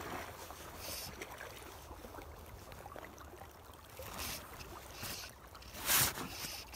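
Wind and water around a small boat, with several brief rustling bursts from hands working the fly line right at the microphone, the loudest about six seconds in.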